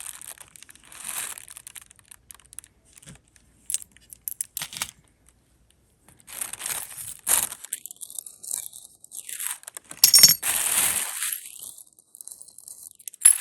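Plastic packaging rustling and crinkling, with small metal jewelry pieces clicking and clinking as they are handled, in irregular bursts and a sharper clatter about ten seconds in.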